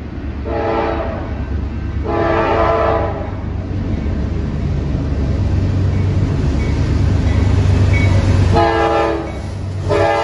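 Norfolk Southern freight train's diesel locomotive sounding its air horn for the grade crossing in four blasts, two in the first three seconds and two more near the end, the last held on. Under the horn is the low rumble of the approaching locomotives, growing louder.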